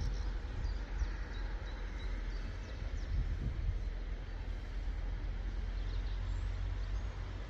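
Wind buffeting the microphone, giving an uneven low rumble under a steady outdoor hiss, with a few faint bird chirps.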